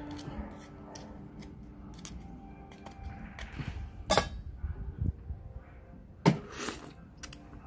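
Knife clicking and scraping against a raw oyster shell as it is pried open, with a sharp click about four seconds in. A short wet slurp follows a little after six seconds as the oyster is sucked from the half shell.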